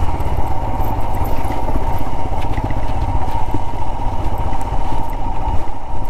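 Motorcycle engine running steadily as the bike rides over a rough dirt track, heard from a camera mounted on the bike.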